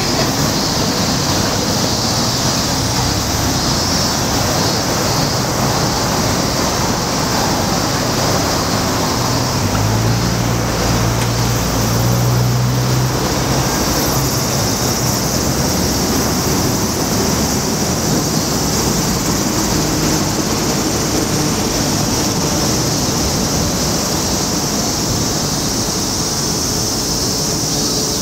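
Steady roar of city road traffic, with a low engine hum that swells for a few seconds about ten seconds in.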